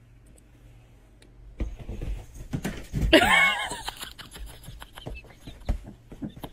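A domestic cat's loud, drawn-out call about three seconds in, bending in pitch, with scattered thumps and taps around it.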